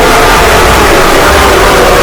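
Heavily distorted emergency-alert alarm: many steady tones layered together and buried in harsh noise, clipping at a constant, extremely loud level.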